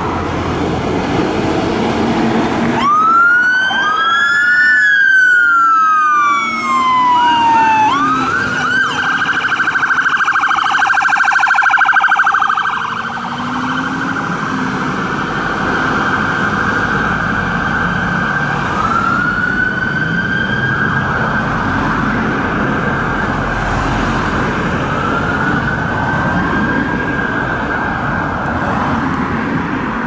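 Fire engine siren starting up about three seconds in: two rising-and-falling wails, then a fast warble, then slower rising wails that are quieter as the appliance drives off, over engine and traffic noise.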